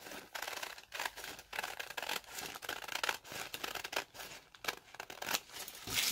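Scissors cutting through several folded layers of a hat-brim pattern, in a run of short irregular snips.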